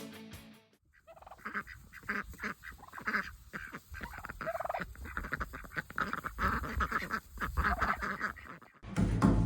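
A flock of geese honking, many short calls overlapping in a steady run.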